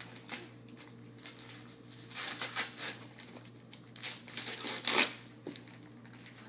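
Gift wrapping paper being torn and crinkled by hand as a present is unwrapped, in several rustling bursts, the loudest about five seconds in.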